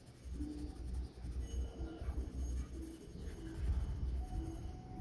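Yellow neon Faber-Castell Ecolápis coloured pencil scratching back and forth on paper as a circle is shaded in.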